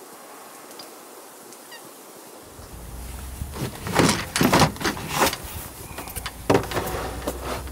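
Quiet outdoor air with two faint bird chirps, then gear being handled on an overhead shelf: a run of knocks, clatter and rustling as a box is taken down. The clatter is loudest a little past the middle and comes once more near the end.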